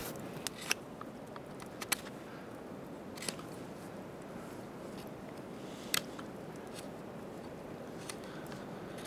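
Fixed-blade knife carving a wooden stick: a few short, sharp clicks and snicks at irregular intervals as the blade bites and shaves the wood, over a steady background hiss.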